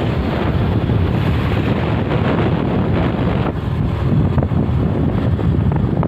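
Wind buffeting the microphone on a moving motorbike: a loud, steady low rumble of wind and riding noise.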